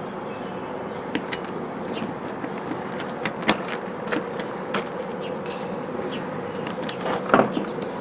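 Small plastic clicks and taps from the parts of a Toyota Camry power window master switch being fitted back together by hand, a few of them sharper, about three and a half and seven seconds in. A steady buzzing hum runs underneath.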